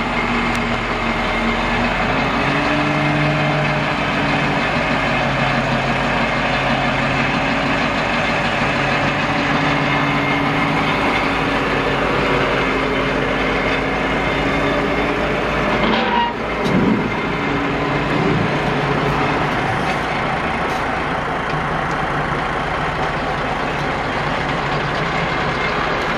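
Dump truck's 8.2-litre V8 diesel engine running steadily, its pitch stepping up about two seconds in. A short clunk with a brief dip in the sound comes a little past halfway.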